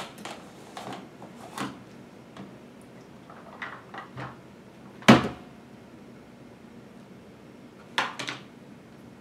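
Container of mixed nuts being handled: scattered light clicks and knocks, one sharp clunk about five seconds in and a quick run of knocks near the end.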